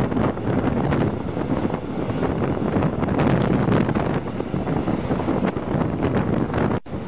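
Intermodal freight train of pocket wagons carrying lorry trailers passing close at speed: a steady loud rush of wheels on rail and wagon rumble, with wind from its slipstream buffeting the microphone. The sound drops out for an instant near the end.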